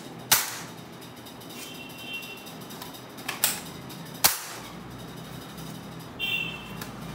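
Spring-powered toy foam-dart blaster being primed by its slide and fired: sharp snaps, one about a third of a second in and two more a little after three and four seconds, then a short squeak near the end.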